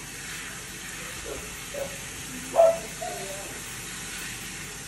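Kitchen faucet spray running steadily into a sink and over a wet monkey, a continuous hiss of water. A few short vocal sounds rise over it from about a second in, the loudest a little past the middle.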